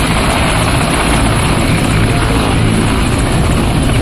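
Mil Mi-17 military helicopters running on the ground with rotors turning: a loud, steady turbine and rotor din with a thin high whine, before take-off.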